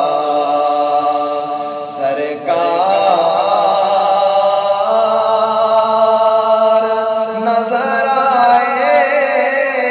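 Man reciting an Urdu naat, holding long drawn-out notes with a wavering, ornamented pitch. There is a short break for breath about two seconds in.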